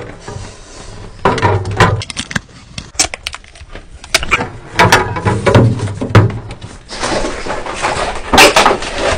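Refrigerator shelves, bins and body being handled: irregular knocks, clatters and rattles of plastic and metal parts. Near the end comes a longer scraping, rustling stretch as the refrigerator is shifted on its cardboard packing.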